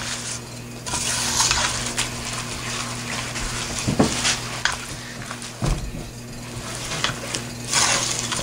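A spoon stirring a thick, sticky mix of oats and cooked chocolate syrup in a metal pot: wet scraping in uneven surges, with a few sharper knocks of the spoon against the pot.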